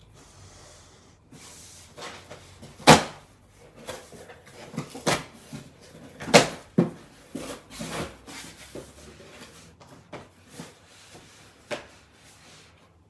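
Instant soup cups being knocked against each other, set down on a wooden table and packed into a cardboard box: a string of irregular knocks and clunks with cardboard rustling in between, the loudest knock about three seconds in.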